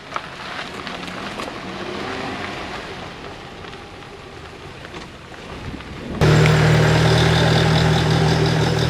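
Car driving, heard from inside the cabin: a steady engine drone with road noise, cutting in abruptly about six seconds in. Before that, a quieter stretch of outdoor noise with a few clicks near the start.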